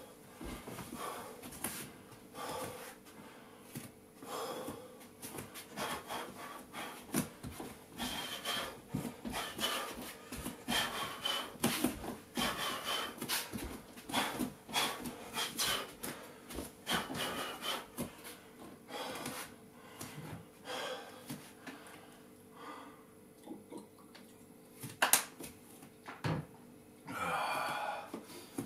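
A man breathing hard from exercise, with irregular rubbing and knocking from his body moving against the floor or mat. One sharp knock stands out near the end.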